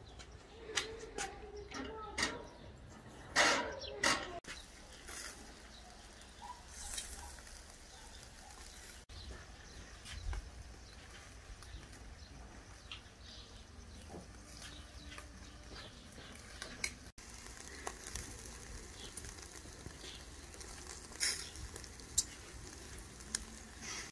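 Burger patties and chicken sizzling on a charcoal grill grate: a steady hiss with scattered faint crackles. In the first few seconds, metal tongs clink sharply several times against the grill and a plate.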